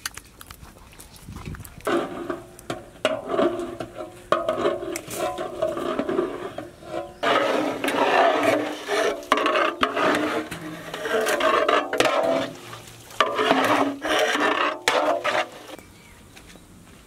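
Chicken being mixed by hand into a thick yogurt and spice marinade, with wet squelching and rubbing in uneven bursts from about two seconds in until shortly before the end.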